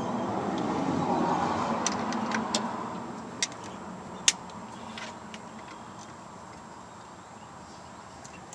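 Scattered sharp metallic clicks and taps of hand tools working a fastener loose on a starter motor, a handful of them spread through the first five seconds, the loudest about four seconds in. Under them a low rumble swells over the first three seconds and then fades.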